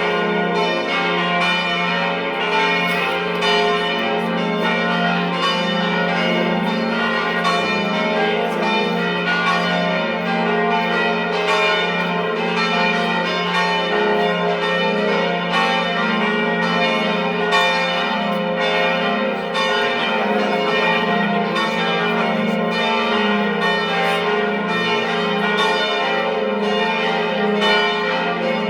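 Church bells pealing continuously, several bells struck one after another in quick succession so that their ringing tones overlap.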